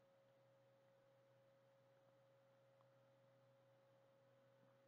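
Near silence: room tone with a faint steady tone.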